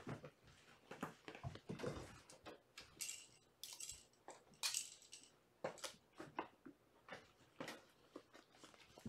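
Faint scuffling of kittens at play: scattered light taps and knocks as they tumble on a wooden floor, and a fabric pet bed rustling in a few brief bursts as a kitten wrestles with it.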